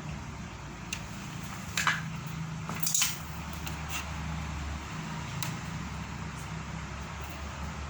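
Motor of a new feed-pellet machine (a converted meat grinder) running unloaded in a sound test: a steady low hum, with a couple of sharp clicks about two and three seconds in.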